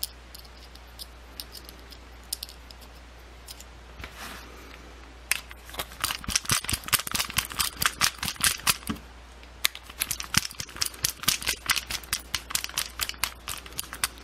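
Screwdriver running screws into a gas valve body, giving quick runs of sharp clicking from about five seconds in. Before that there are only a few light clicks as the parts are handled.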